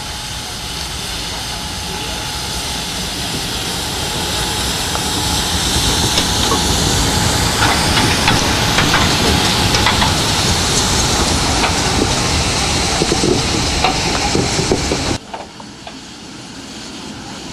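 Class 03 steam locomotive, built 1936 by Borsig, rolling past close by: steam hissing, growing louder as it nears, with scattered clicks and clanks from the wheels and running gear. The sound cuts off abruptly about fifteen seconds in, giving way to a quieter background.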